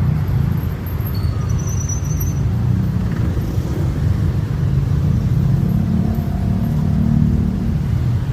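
Street traffic: a steady low rumble of cars and engines going by.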